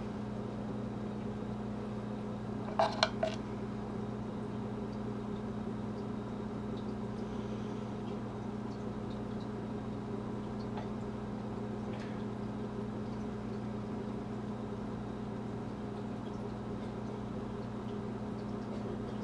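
Steady low room hum with a few fixed tones in it. A short cluster of clicks about three seconds in, and a couple of faint ticks later, come from a folding knife being picked up and handled.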